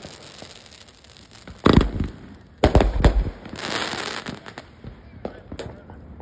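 Aerial fireworks going off overhead: a loud bang about two seconds in, then a quick run of bangs, a crackling shower, and scattered smaller pops near the end.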